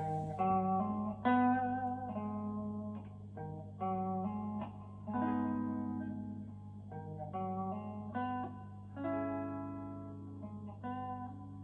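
Goldtop Les Paul electric guitar with Parson Street Golden Age humbuckers playing picked notes and chords through an amp, each struck and left to ring out, with a steady low hum underneath.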